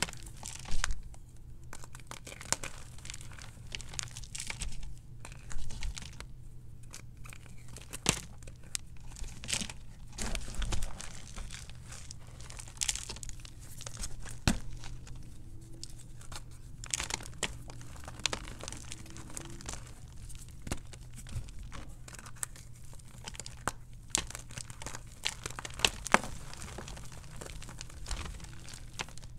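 Hands crushing and crumbling a block of gym chalk in loose powder: irregular crunches and soft crumbling with sharper snaps now and then. The chalk is very hard and crunchy.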